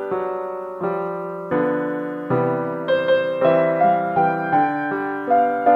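Slow piano music: single notes and chords struck about every half second, each fading before the next.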